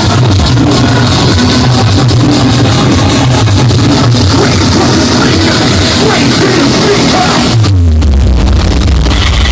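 Loud electronic dance music over a PA system, recorded with heavy distortion. About three-quarters of the way through, the high end drops out and a bass note glides down into a heavy, sustained low bass.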